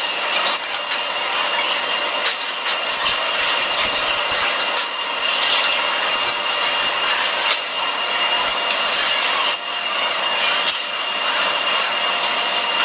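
Steady rushing noise aboard a car ferry, with a thin high whine held throughout and scattered light clicks.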